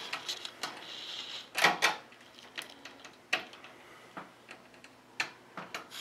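Small irregular clicks and taps of a screwdriver and a small screw being handled and fitted against the PC case's rear expansion-slot bracket, with a few sharper knocks.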